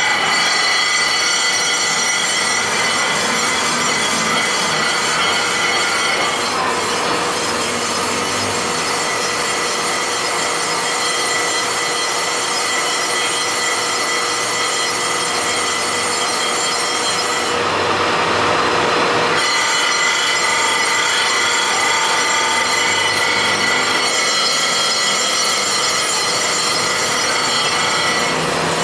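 Crankshaft grinding machine, its abrasive wheel grinding a spinning steel crankshaft journal: a steady grinding hiss with a high whine running through it, shifting in tone a few times and growing brighter for a moment about two-thirds of the way through.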